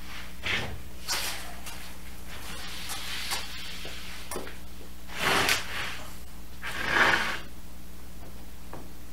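Plywood wall panel scraping and sliding against the plywood trailer floor as it is raised upright: several rough scrapes, the two loudest about five and seven seconds in, over a steady low hum.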